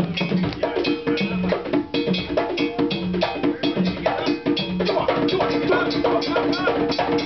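Live African drum ensemble playing a fast, driving rhythm: dense drum strokes with a sharp clacking, wood-block-like percussion over them.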